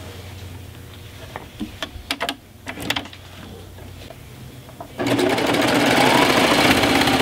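A few clicks and handling noises as the quilt is settled under the presser foot, then about five seconds in a Baby Lock Triumph serger starts and runs fast and steadily. It is stitching the binding on through the layers of fabric and batting.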